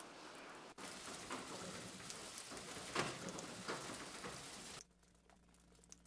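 Steady rain falling, with individual drops pattering. It cuts off sharply about five seconds in, leaving only a few scattered drips.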